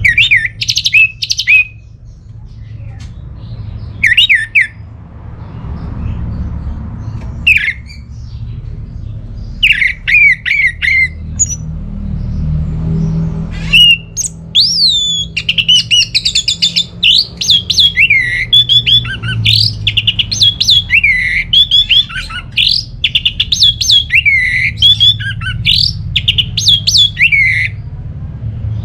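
Orange-headed thrush singing: a few short bursts of sharp, falling whistled notes, then from about halfway a continuous rapid stream of varied notes. A steady low rumble sits underneath.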